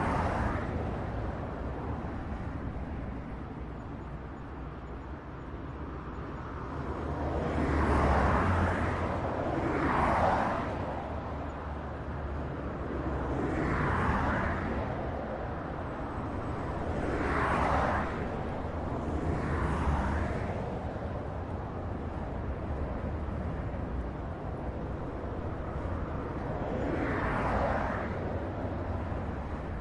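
Highway traffic: a steady low rumble of road noise with about six vehicles passing by one after another, each swelling and fading over a second or two, the loudest about eight and ten seconds in.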